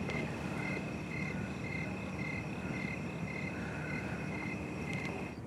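Crickets chirping in a steady, even pulse, about two chirps a second, over a low background hum, cut off abruptly near the end.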